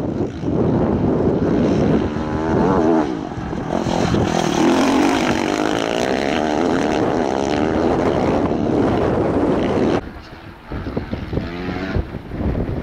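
Engines running close by, their pitch rising and falling as they pass. About ten seconds in the level drops suddenly and a fainter, choppier engine sound follows.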